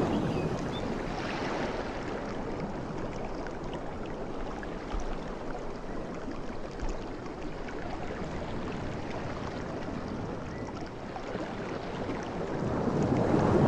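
Sea waves washing on a shore: the wash of one wave dies away at the start, a steady surf hiss follows, and the next wave swells in near the end.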